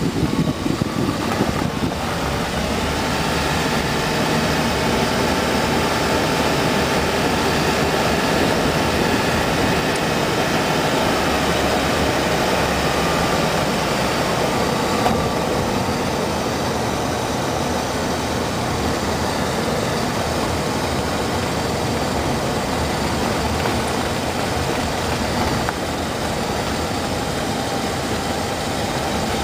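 A car driving slowly along a road: steady engine and tyre noise.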